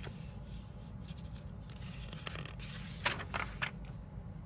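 Paper pages of a paperback picture book being turned and pressed flat by hand: a few short rustles about three seconds in, over a low steady hum.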